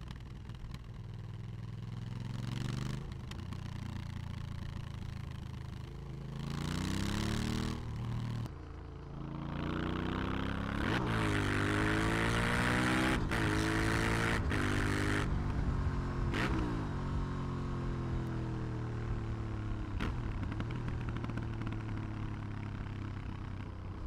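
Aprilia Shiver 900's 90-degree V-twin engine heard on board while riding. The revs climb about six seconds in and cut off sharply a couple of seconds later, then rise and fall repeatedly with a few short sharp snaps, before settling to a steady cruise near the end.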